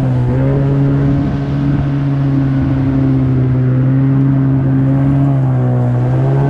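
Yamaha 30 hp two-stroke outboard with a water-jet attachment running steadily under way. Its pitch dips briefly near the end and then picks back up.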